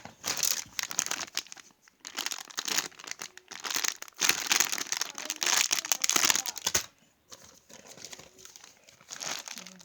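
Crinkly packaging being handled and crumpled in repeated bursts, loudest in the middle stretch and fainter for the last few seconds.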